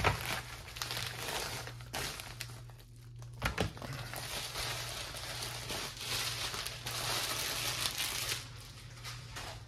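Packaging crinkling and rustling continuously as it is unwrapped by hand, with a few small sharp knocks; a low steady hum runs underneath.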